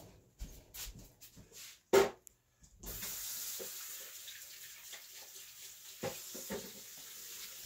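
Beaten eggs sizzling in a cast iron skillet, a steady hiss that starts about three seconds in. It is preceded by a single sharp knock about two seconds in.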